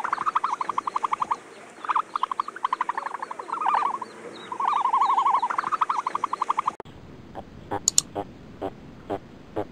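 Repeated bouts of rapid pulsed trilling calls from an animal, each bout lasting up to about a second and a half. About seven seconds in they stop abruptly, and a scatter of short clicks and knocks follows.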